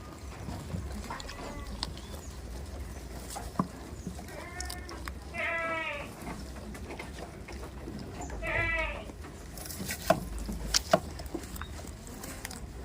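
Goats bleating about four times, each call quavering, the loudest one a little before the middle. A few sharp clicks or knocks near the end.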